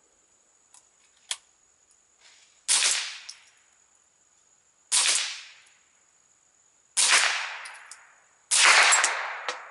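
Suppressed Ruger 10/22 Takedown .22 LR rifle fired four times, about two seconds apart, each sharp shot trailing off over about a second. The Remington Golden Bullet rounds sit right at the speed of sound, so the shots are a mix: some seem subsonic, others carry the supersonic crack of the bullet over the muffled report.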